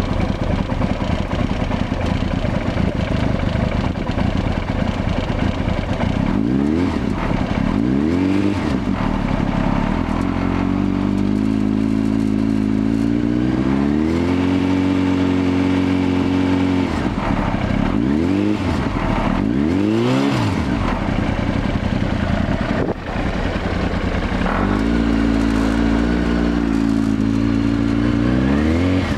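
Honda CBR900RR Fireblade inline-four engine running through a Yoshimura carbon slip-on exhaust. It idles steadily at first, then from about six seconds in is revved repeatedly: some quick blips, and some rises held at raised revs for a few seconds.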